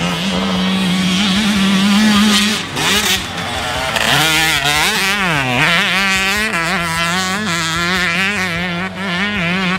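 Pro Circuit-tuned 2020 Yamaha YZ125 two-stroke motocross engine being ridden. It holds a steady high pitch for about two and a half seconds, drops briefly near three seconds, then revs up and down with the throttle, its pitch repeatedly dipping and climbing.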